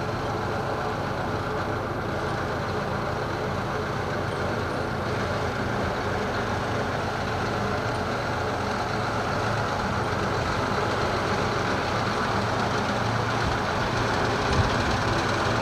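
Engines of an asphalt distributor truck and a tractor towing a paving-fabric laying rig, running steadily at low speed, with a single short knock near the end.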